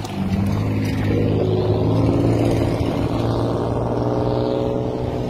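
Road traffic engines: a steady low engine hum that gets louder about a third of a second in, with cars running through the intersection.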